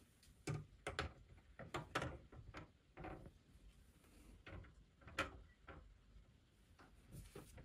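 Light, irregular clicks and knocks of a white wire grid panel being fitted onto adhesive plastic hooks on a cabinet door, then a wire basket being hooked onto the grid.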